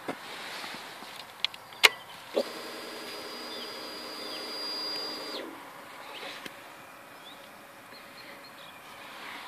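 A few sharp clicks, then an electric motor whine with a buzzing hum for about three seconds that stops suddenly, like a motorcycle's electric starter cranking; faint bird chirps.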